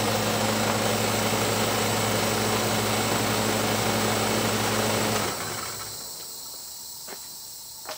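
Hermetic refrigeration compressor of a condensing unit pumping air, running with a steady hum and a broad hiss of air venting from the relief valve at about 350 psi. About five seconds in the compressor cuts off suddenly, leaving a fainter high hiss of air still leaking, with a few small clicks.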